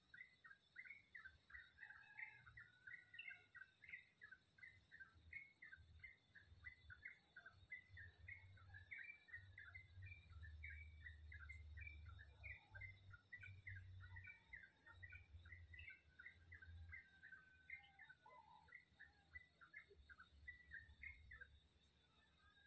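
Birds chirping in a fast, continuous run of short high notes that stops shortly before the end, over a faint low rumble.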